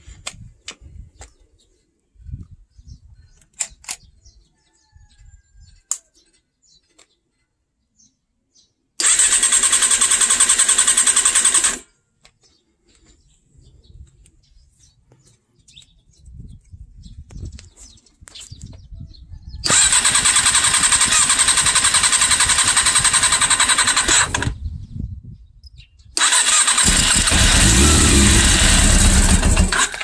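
Motorcycle electric starter cranking the four-carburettor engine in three separate attempts, about three, five and four seconds long, each starting and stopping abruptly, with small clicks in between.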